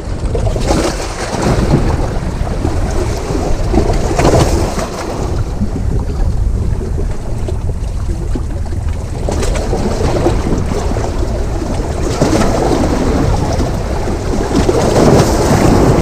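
Sea waves washing against the rocks, with wind buffeting the microphone in a low rumble; the wash swells about four seconds in and again near the end.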